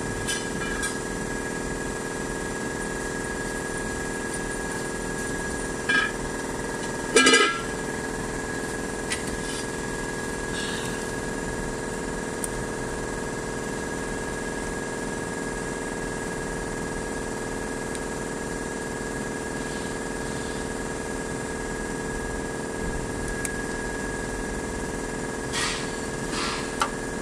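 Occasional metal clinks and knocks from hands and tools working on a diesel injection pump as it is fitted to the engine. The loudest comes about seven seconds in and a few lighter ones near the end, over a steady background hum.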